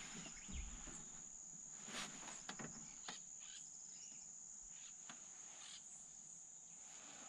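Faint, steady high-pitched trill of insects such as crickets, with a few soft knocks about two to three seconds in.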